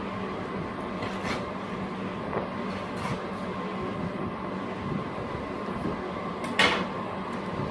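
A few clicks and knocks from the phone's retail box being handled and opened, the loudest about six and a half seconds in, over a steady background hum.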